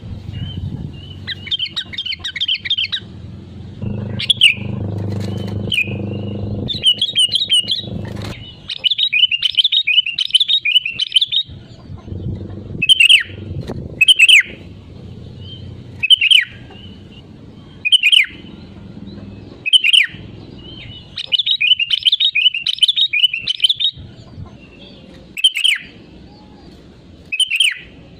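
Sooty-headed bulbul singing: bursts of quick bubbly chirping phrases, then, from about the middle, single sharp downward-slurred calls every second or two, with more phrases in between. A low rumble runs underneath in stretches.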